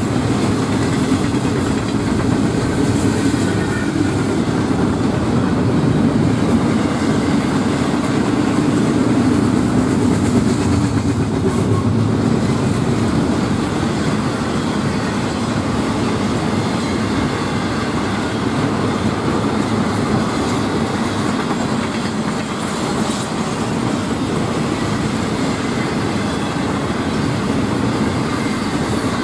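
Intermodal freight train of double-stack container well cars and trailer-carrying flatcars rolling past: a steady rumble of steel wheels on rail, with wheels clicking over rail joints.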